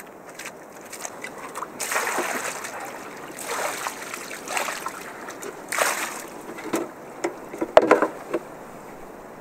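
Muddy water being scooped and tipped out of a trench with a cut-down plastic canister: several separate splashing pours, then a sharp knock with more splashing about eight seconds in.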